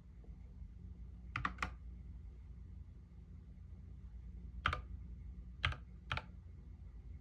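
Keystrokes on a YUNZII KC68 mechanical keyboard with lubed Gateron Yellow linear switches and XDA keycaps: a quick run of three keypresses about a second and a half in, then three separate keypresses a few seconds later. A faint steady low hum lies underneath.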